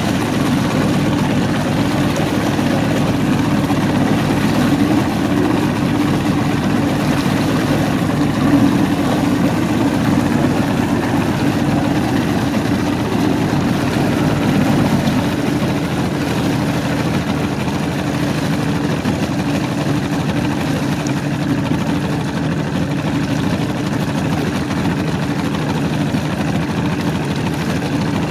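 Mariner Magnum 150 outboard, a V6 two-stroke, running steadily as it pushes the boat along, with a steady low drone. Its level drops slightly about halfway through.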